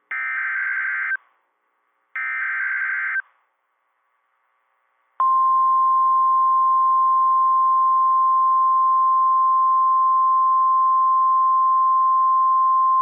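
NOAA Weather Radio Emergency Alert System (SAME) header: two one-second bursts of warbling digital data tones, a second apart. About two seconds later the steady 1050 Hz warning alarm tone starts and holds, announcing a new warning about to be read.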